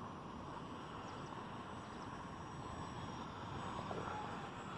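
Electric RC plane's brushless motor and propeller buzzing steadily at a distance, over outdoor wind noise.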